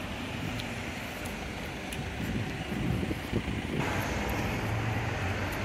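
Outdoor city ambience with traffic noise. About two thirds of the way through, the sound brightens abruptly and a steady low engine hum comes in.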